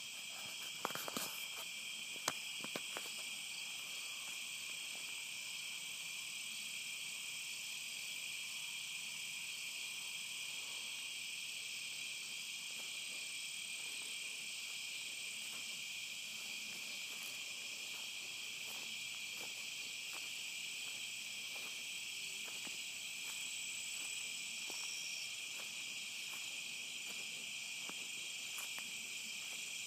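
Steady, high insect chorus, typical of crickets calling in the woods at night, unchanging throughout. A few sharp clicks sound in the first three seconds.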